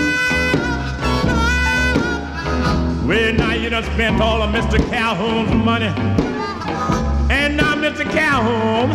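A vintage Louisiana blues recording playing from a vinyl LP in mono. A full band plays throughout, with a wavering, bending lead line coming in about three seconds in and again near the end.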